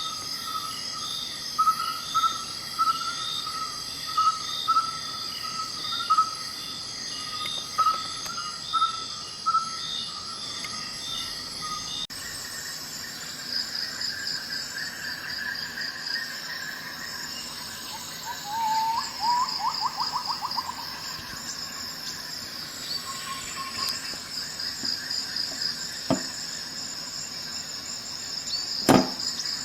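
Insects chirping in steady repeated pulses, with a brief bird-like trill in the middle and two sharp clicks near the end.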